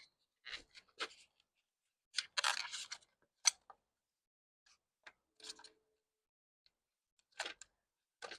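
Hands working on moped wiring: scattered short rubs, scrapes and clicks as a wire and small parts are handled. The loudest is a scratchy rustle about two to three seconds in, followed by a sharp click.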